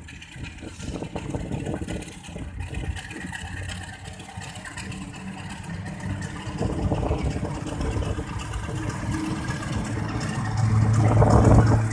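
Diesel locomotive hauling a passenger train, its engine running with a steady low drone that grows louder as it draws near, loudest near the end.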